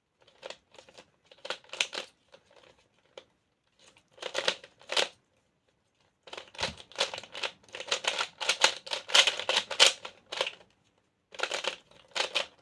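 3x3 speedcube being turned fast: bursts of rapid plastic clicking turns, broken by short pauses, with the longest run of turns in the second half.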